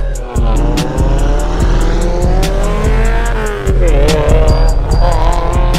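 Instrumental hip-hop beat with a steady hi-hat and heavy bass, mixed with a car engine accelerating, its pitch climbing, dropping briefly about four seconds in and climbing again.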